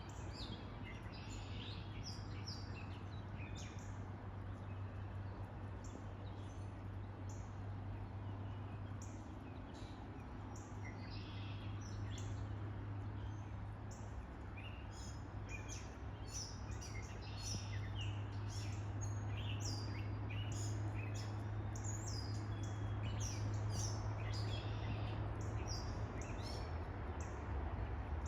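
Birds chirping and peeping: many short, high chirps in quick, irregular succession, over a steady low hum.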